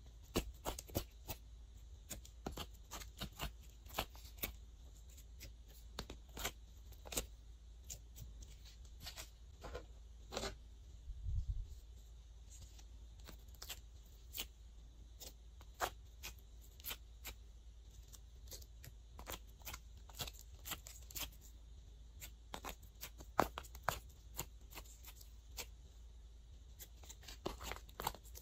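Sticky slime being pressed into and pulled out of a plastic ice cube tray by fingers: irregular quick clicks, pops and crackles throughout.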